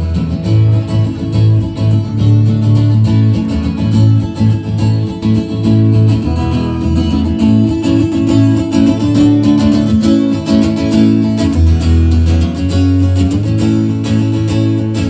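Acoustic guitar playing an instrumental introduction to a song, with low bass notes changing about every second under the chords.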